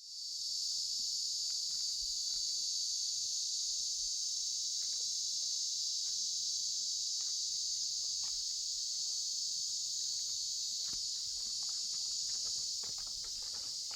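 Steady chorus of insects, an even high-pitched shrill drone that starts abruptly and holds without a break, with faint scattered clicks beneath.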